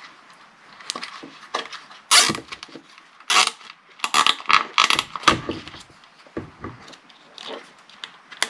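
Nylon zip ties (tie wraps) being pulled tight through their ratchet heads, a run of short rasping zips, with light plastic handling noise from the 3D-printed housing they fasten to.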